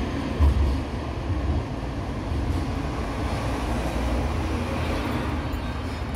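Steady city street traffic noise with a low rumble, and a short low thump about half a second in.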